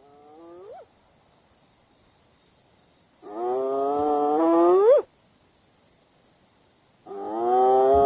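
Spotted hyena whooping: three drawn-out calls, each rising slowly in pitch and ending in a quick upward sweep. The first is short and faint; the next two, about three and seven seconds in, are long and loud.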